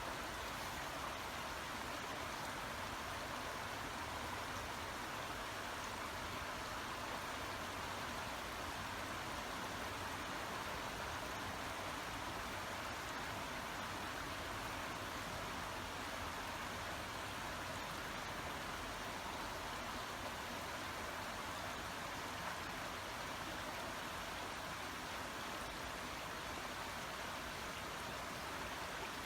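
Babbling brook: water running steadily over stones.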